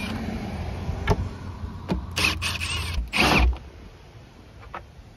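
Cordless drill or driver run in two short whirring bursts, backing out a subwoofer's mounting screws from the box, with a few light clicks and knocks of the woofer and screws.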